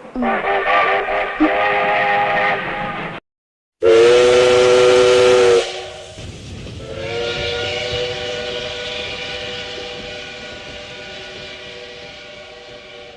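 Steam locomotive chime whistle sounded three times as separate clips. First comes a wavering chord of about three seconds. After a short gap there is a loud blast of under two seconds, then a longer blast that slowly fades away.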